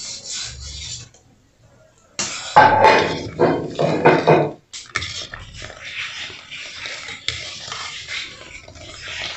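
Metal spoon stirring and scraping through thick rapadura-and-milk syrup in a cast-iron pot, loudest for a couple of seconds after a brief gap, then the syrup bubbling steadily on the wood stove.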